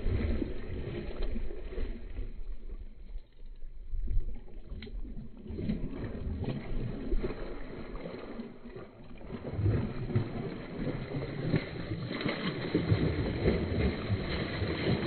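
A hooked snakehead thrashing at the water's surface, splashing and churning the water in irregular surges as it fights the line.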